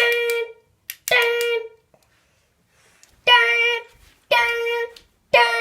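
Fire alarm horn sounding the temporal-three evacuation pattern: groups of three half-second blasts of one buzzy tone, each group followed by a pause of about a second and a half. Two blasts end one group, then after the pause three more blasts sound.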